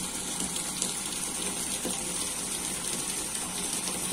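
Steady hiss of water spraying from a crop-spraying machine's nozzle.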